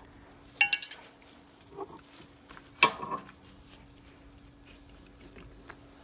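Steel tools clinking and rattling as a brake caliper piston wind-back tool is released and lifted off the caliper after the piston has been wound fully back. There is a ringing metal jangle about half a second in and a sharp clink near the middle, with quieter knocks between and after.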